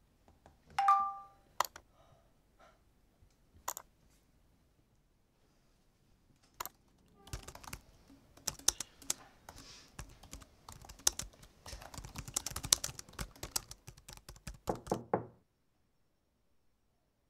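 Typing on a computer keyboard: scattered single key clicks, then a fast, dense run of keystrokes for about eight seconds. A short two-tone electronic chime sounds about a second in, and a brief run of heavier thuds comes near the end.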